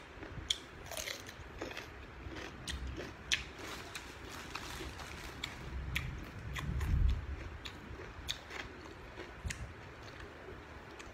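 A person biting into and chewing raw cucumber close to the microphone: many crisp, irregular crunches, with a louder low rumble about seven seconds in.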